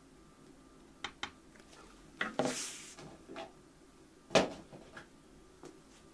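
Plastic glue bottle with a fine nozzle being handled and squeezed to check that the nozzle is clear: a few small clicks, a short hiss about two and a half seconds in, and a sharp click about four seconds in.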